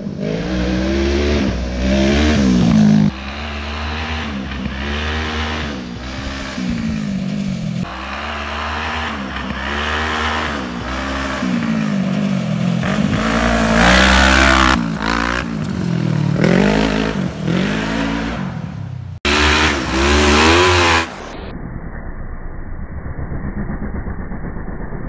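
Off-road go-kart with a Kawasaki Ninja 650 parallel-twin motorcycle engine, revving up and down over and over as it is driven. The sound breaks off abruptly several times and is quieter and muffled over the last few seconds.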